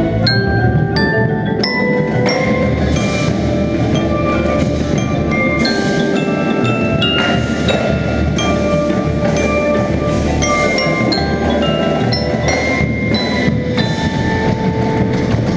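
Indoor percussion ensemble playing: glockenspiel and xylophone notes struck close by, ringing briefly in a quick melodic line, over a full backing of lower mallet instruments and drums.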